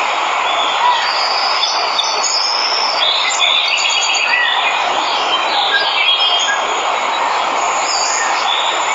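Steady rush of a waterfall, with birds chirping and calling over it in short, quick phrases.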